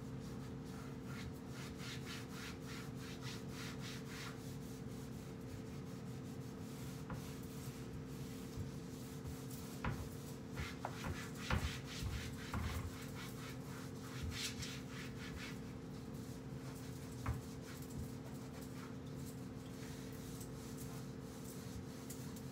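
A cloth scrubbing back and forth over kitchen cabinet doors in quick, rhythmic strokes, with a few sharp knocks against the cabinets near the middle. A steady low hum runs underneath.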